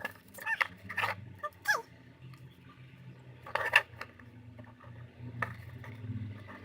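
A spoon scraping and clicking against a bowl while stirring thick slime, in short irregular strokes, the loudest about three and a half seconds in.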